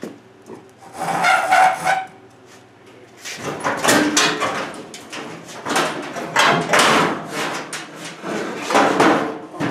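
Irregular metal clunks, knocks and scrapes as a radiator is set and shifted into place in the front of an old truck, coming in a busy run from a few seconds in.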